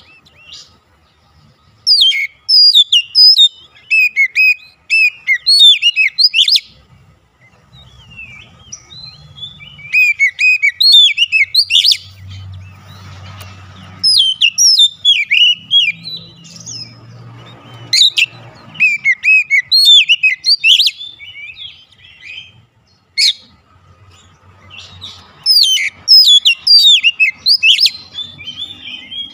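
Oriental magpie-robin singing loudly in phrases of a few seconds, each a fast run of varied chirps and whistled notes, with short pauses between phrases.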